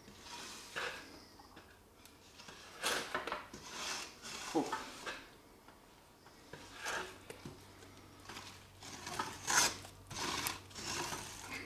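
Wooden spoon stirring a thick, grainy sugar mixture in a stainless steel pot, scraping against the sides and bottom in uneven strokes with short pauses between them.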